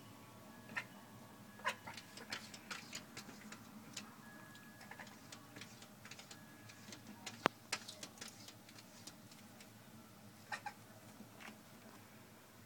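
Domestic cat chattering at birds: irregular strings of quick, clicky chirps in clusters, with one sharp click about seven and a half seconds in.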